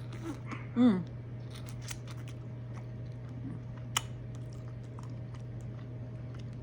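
Mouth smacking and chewing, many short sharp clicks, while eating shell-on shrimp and mussels. About a second in, one brief, louder voiced sound falls in pitch.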